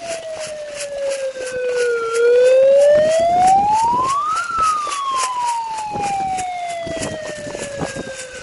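A siren wailing slowly: its pitch falls, climbs to a peak about four and a half seconds in, then falls away again. It is sounding as the start signal for an airsoft game.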